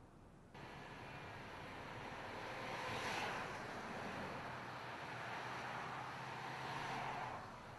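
Road traffic in a snowstorm: vehicles pass with a rising and fading tyre hiss, one about three seconds in and another near the end, over a steady low engine hum.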